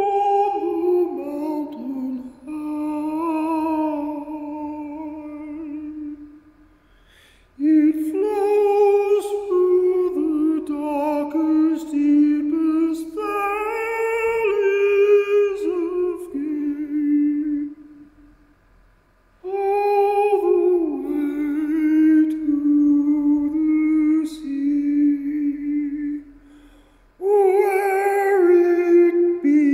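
A man singing unaccompanied in long, drawn-out phrases with no clear words, four phrases with short pauses between them, each starting high and stepping down in pitch.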